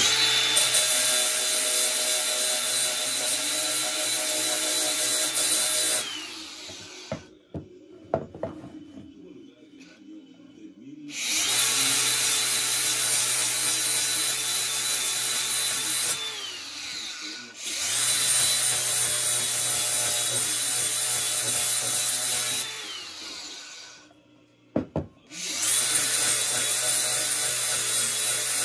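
DeWalt angle grinder with an abrasive disc sanding a wooden box, running in four long stretches of several seconds each. The motor's high whine slides down as it spins down at the end of each run. Between runs there are short quiet pauses with a few knocks.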